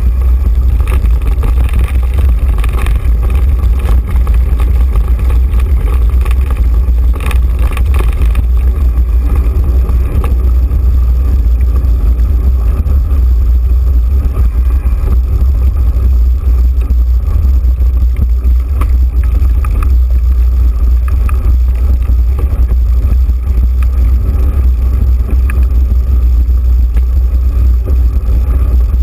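Steady, loud low rumble of wind buffeting a bike-mounted action camera's microphone as a mountain bike rolls along a dirt trail, with a few brief knocks of the bike rattling over the ground.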